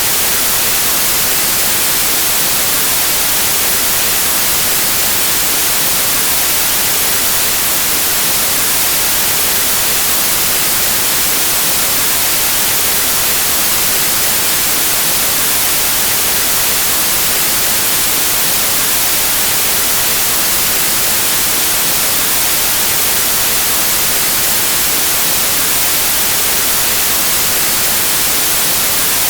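Steady white noise: an even, unchanging static hiss, strongest in the high end.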